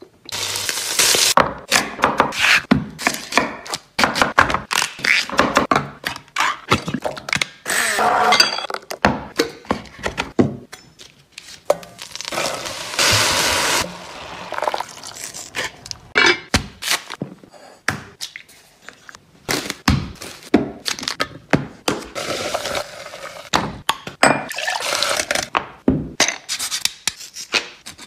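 A run of cooking sounds: a knife cutting bacon on a wooden board, many sharp knocks and clinks of utensils, and about halfway through, a couple of seconds of sizzling from a pot of vegetables.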